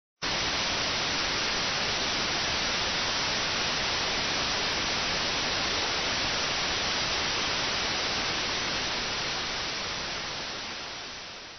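Analog TV static: a steady hiss of noise that cuts in suddenly and fades out near the end.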